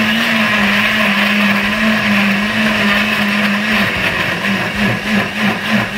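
Countertop blender motor running at full speed, puréeing chopped onion, bell pepper and red chili with olive oil. It runs steadily at first, and about four seconds in its pitch starts to waver in a rhythm as the load churns.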